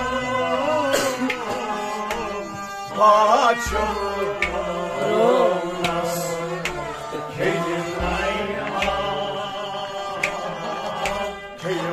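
Kashmiri Sufi devotional music: tabla playing, with deep bass-drum strokes every second or two, under a wavering melodic line and a steady drone.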